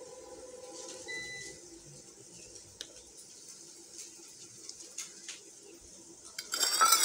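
A few faint clicks of spoons against spice containers, then near the end a sudden loud sizzle with stirring as the spices go into hot oil in the cooking pot.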